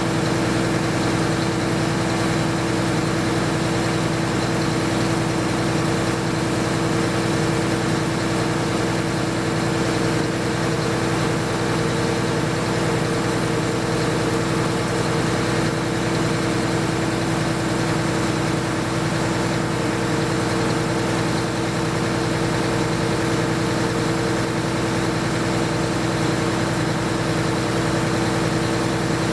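MEP-006A military generator set's six-cylinder diesel engine running steadily, with a constant hum from the set over the engine's even rumble.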